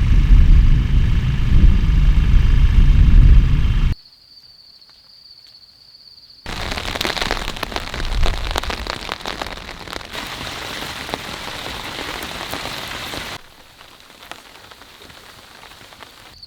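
Heavy rain pattering hard on a surface, with a loud low rumble of thunder in the first four seconds that cuts off abruptly. Between the sections, and again near the end, the rain drops away to a quiet background with a steady high tone.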